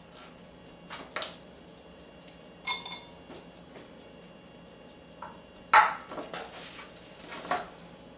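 Scattered clinks and knocks of dishes and utensils being handled while sandwiches are arranged on a ceramic platter. There is a ringing clink a little under three seconds in and the loudest knock near six seconds.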